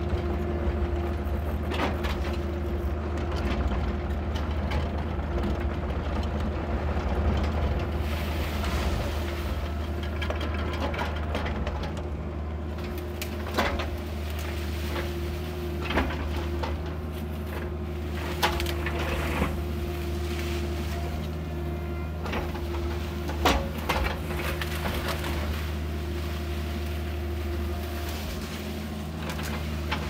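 Caterpillar excavator's diesel engine running steadily, heard from inside the cab, with a few sharp knocks and clunks from the machine's work in the second half.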